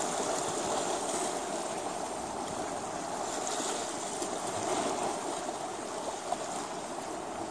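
Steady rush of sea water washing against shore rocks.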